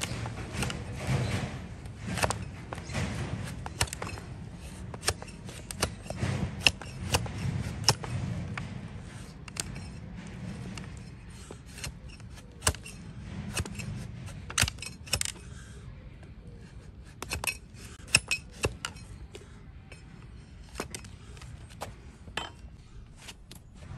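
Overgrown donkey hoof being pared with a heavy flat-bladed hoof knife against a wooden block: sharp, irregular slicing and scraping strokes as the blade shears through the hoof horn. The strokes thin out in the second half.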